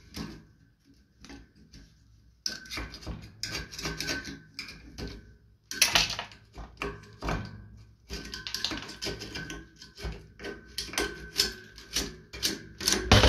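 Quick, irregular metallic clicking and clattering of hand tools working on metal parts. A few isolated clicks at first, then a dense run of clicks and knocks from about two and a half seconds in, with brief pauses.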